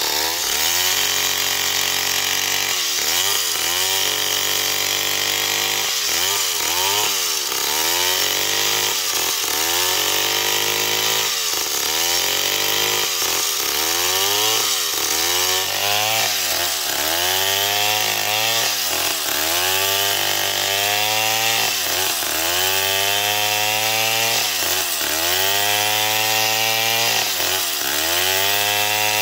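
Stihl MS 070 large two-stroke chainsaw ripping a log lengthwise under full throttle. The engine note sags under load and picks back up about once a second as the chain is pushed along the grain.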